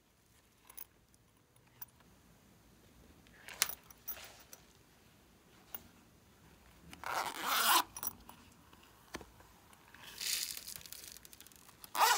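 Zipper on a silicone pencil case being pulled in a few short runs in the second half, after some light clicks and rubs from handling the case.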